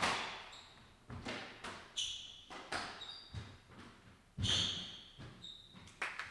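Squash rally: the rubber ball cracking off rackets and echoing off the court walls in a string of hits, with short high squeaks of shoes on the hardwood floor. Near the end the rally stops and clapping begins.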